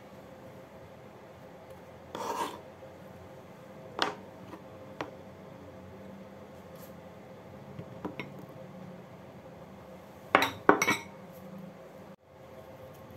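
Kitchen-prep handling sounds: a ceramic bowl and utensils clink and knock on the counter and cutting board. A few light clicks are followed by two louder knocks close together near the end.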